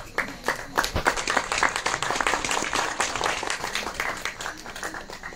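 Audience applauding: a dense run of hand claps that starts at once, is fullest in the first few seconds and thins out near the end.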